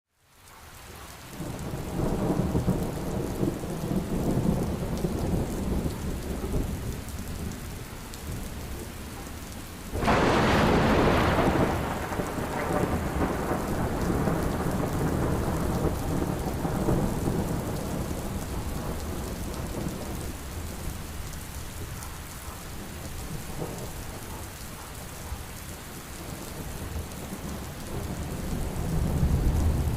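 Heavy rain pouring steadily with rolling thunder. About ten seconds in, a sudden loud thunderclap is the loudest moment and rumbles away over a couple of seconds. Low thunder builds again near the end.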